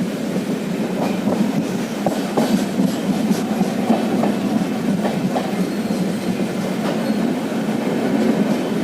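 Passenger train running along the track, a steady rumble of the carriage with faint, irregular clicks of the wheels over rail joints.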